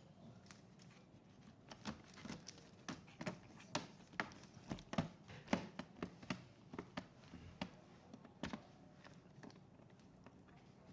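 Irregular light clicks and taps of small hard objects being handled, most of them in the middle of the stretch, with one louder click about eight and a half seconds in.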